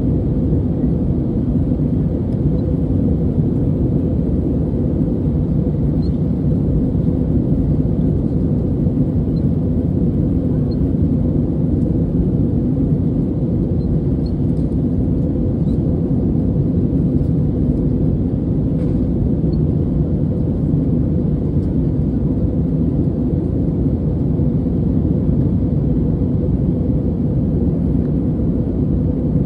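Steady cabin noise of an Airbus A320neo in flight, heard from a window seat over the wing: its Pratt & Whitney geared turbofan engines and the rush of airflow, a dense low rumble that stays even throughout.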